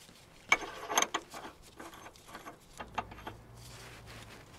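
Metal clicks and scraping as a steel threaded rod is fitted and threaded into a bushing press tool's cup in a wishbone bushing housing. The clicks come irregularly, the sharpest about half a second and a second in.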